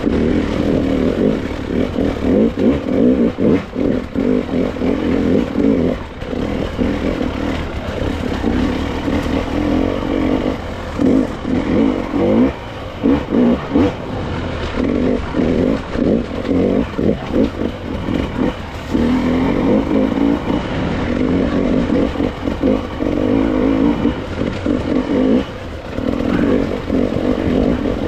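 Dirt bike engine being ridden off-road, the throttle worked on and off in quick bursts over and over, most choppy through the middle, with some clatter over rough ground.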